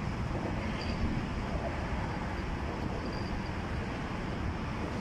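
Steady low rumble of road traffic, mixed with wind on the microphone.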